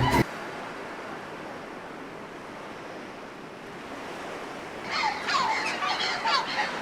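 Beach ambience of ocean surf, a steady wash of waves. From about five seconds in, a series of short, harsh bird calls joins it, each dropping in pitch.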